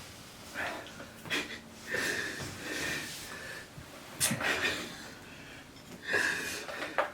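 People gasping, sniffing and wheezing in short bursts of hard breathing, the reaction to the burning heat of extremely spicy instant yakisoba eaten in silence. There is a sharp click about four seconds in.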